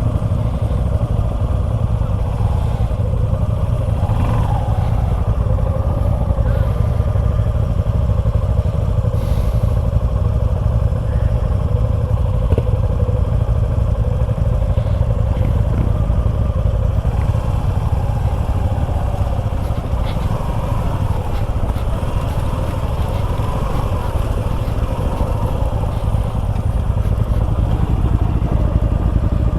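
Suzuki V-Strom 250 SX's single-cylinder engine running under way while ridden, its pitch wavering up and down with the throttle, over a constant heavy low rumble.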